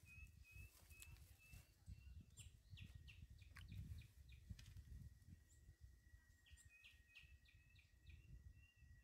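Near silence with faint bird calls: runs of short repeated chirps near the start and again near the end, and a few downward-sliding calls between them. A thin steady whistle comes in about halfway and holds.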